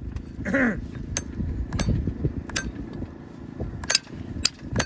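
Farrier's hammer driving a horseshoe nail through a mule's shoe into the hoof wall: a series of sharp, unevenly spaced metal strikes.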